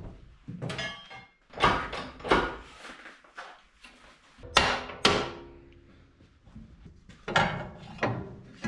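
Hammer blows on sheet steel: several sharp strikes, mostly in pairs with pauses between, each with a short metallic ring.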